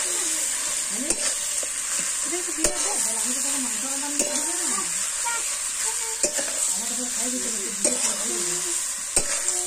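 Chicken pieces sizzling in a metal wok over a steady hiss, stirred with a metal spatula that scrapes and knocks against the pan every second or so.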